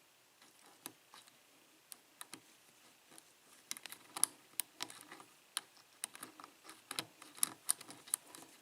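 A steel lock pick clicking and scraping against the pin stacks inside an Abus 83/45 padlock's Schlage keyway during single-pin picking. A few light clicks at first, then a quicker run of small clicks from about four seconds in.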